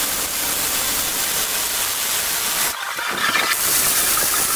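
Arc welding on steel square tubing: a steady sizzling crackle that breaks off briefly about three seconds in and then starts again.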